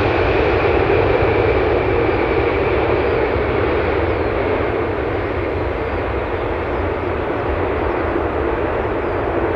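Boeing 747-8 freighter's four GEnx-2B jet engines running as the airliner rolls out after touchdown. A steady jet roar with a faint high whine that fades over the first few seconds, the whole sound slowly dying away as the aircraft moves off down the runway.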